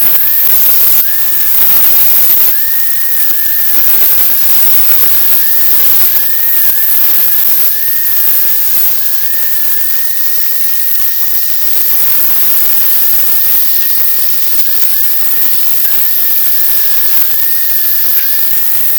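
A small handheld power tool's motor running with a steady high whine that dips briefly again and again as it is pressed onto the work, over a loud hiss.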